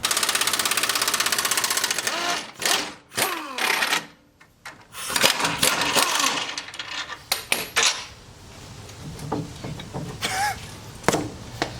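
Pneumatic impact wrench hammering in a fast, even rattle for about two seconds, followed by metal clanks and another run of tool noise on the Jeep's control-arm bolts.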